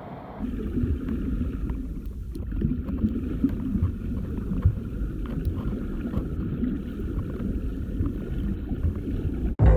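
Steady rushing wind and water noise with gusts buffeting the microphone, as on a moving small boat.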